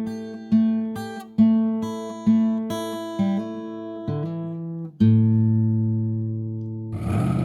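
Acoustic guitar music: plucked chords strummed in a steady rhythm, ending on a held chord that rings out. Near the end a steady rushing noise cuts in.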